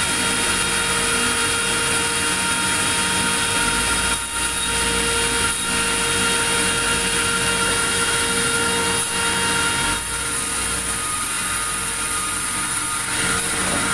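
A machine running steadily: a loud hum with several high whining tones over a hiss, with a few brief dips in level.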